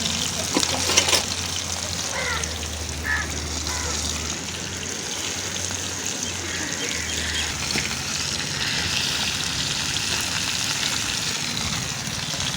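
Fish frying in hot coconut oil in a kadai, a steady sizzle with a burst of crackling about a second in.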